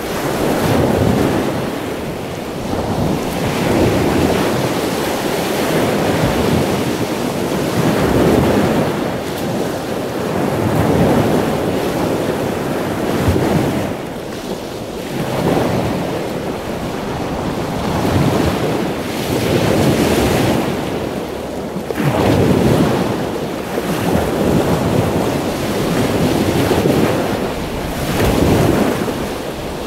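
Ocean surf: waves breaking and washing in, swelling and easing every few seconds.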